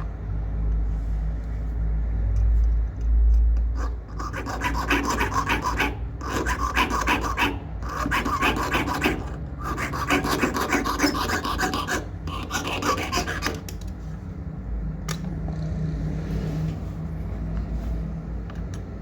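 Hand file rasping on a small silver piece, in runs of quick back-and-forth strokes with short pauses. A low rumble comes first, in the opening few seconds.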